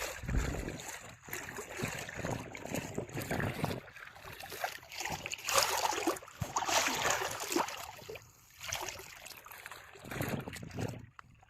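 Sea water washing in surges, swelling and falling away every few seconds, loudest about six to seven seconds in.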